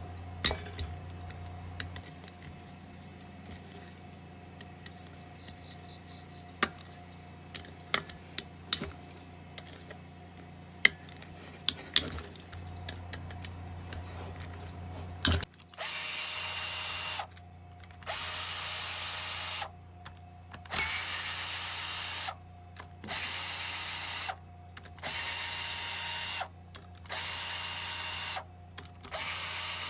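Power tool running in short, even bursts, about seven of them in the second half, backing out the 3/8 bolts of a mower engine's bottom plate. Before that come scattered metal clicks and knocks from handling the tools and parts.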